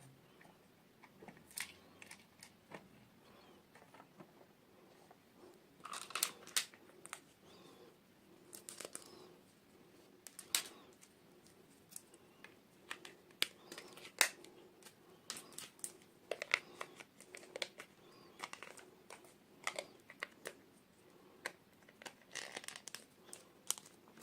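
Packaging being unboxed by hand: plastic wrapping crinkling and tearing in short spells, among many scattered sharp clicks and taps.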